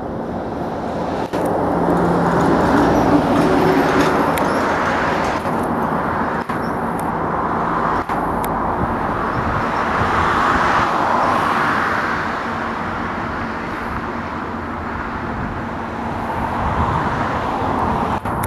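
Road traffic passing close by: a steady rumble of cars and tyres that swells twice as vehicles go past, with a low engine hum in the first few seconds.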